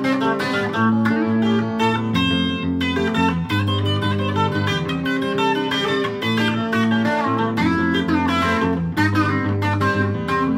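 Solid-body electric guitar played through a pedalboard, picking a steady stream of melodic notes over held low notes.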